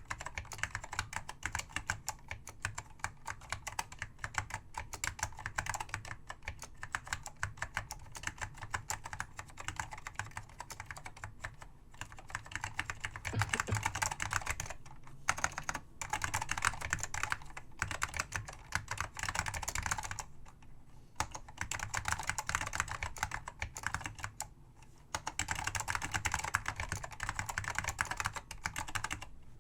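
Continuous fast typing on an Apple M0116 keyboard with Alps SKCM Salmon switches, dense key clacks with a few brief pauses.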